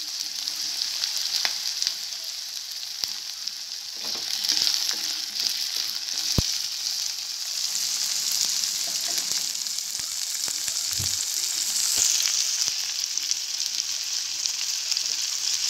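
Green chillies, onion, ginger and garlic sizzling as they fry in hot oil in a stainless steel wok, a steady hiss with a few sharp clicks, the clearest about six seconds in.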